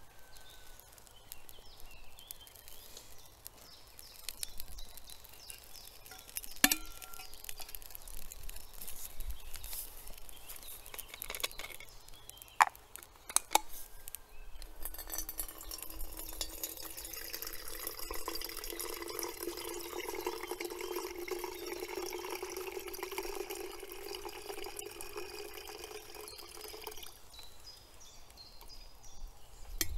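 Water being poured into a container for about twelve seconds, its tone rising slightly as it fills, after a few sharp clinks and knocks of handled utensils.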